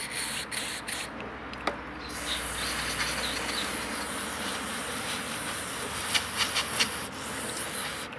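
Aerosol intake cleaner hissing out of a red extension straw into the passages of a chainsaw carburetor body: a short spray, a pause of about a second, then one long spray with some sputtering crackle that stops sharply.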